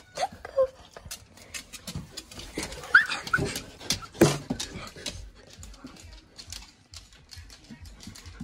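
A dog moving about close by, giving a few short whines, among scattered knocks and rustles, the loudest two sharp knocks in the middle.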